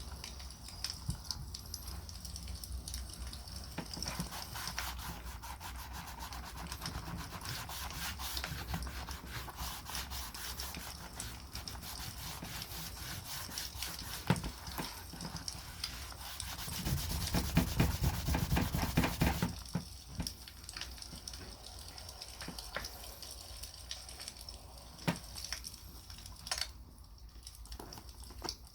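Beeswax being rubbed into a full-grain leather knife sheath, a steady rubbing that grows louder for about three seconds a little past the middle, over the crackle of a wood campfire.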